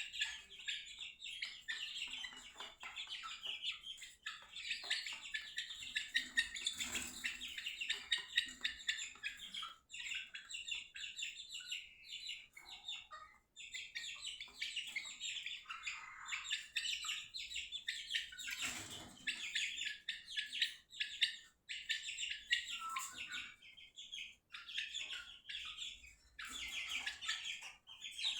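A group of Aseel chicken chicks peeping: many rapid, high chirps overlapping almost without pause, with a few short lulls.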